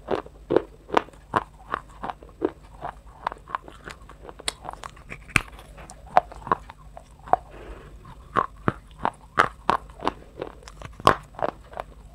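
Close-up crunching of something brittle being bitten and chewed: sharp, irregular crunches, about two a second.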